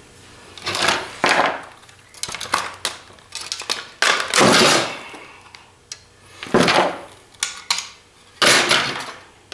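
Hard plastic housing and parts of a CPAP machine clattering, knocking and scraping as they are handled and pulled apart, in irregular bursts with a longer scrape about four seconds in.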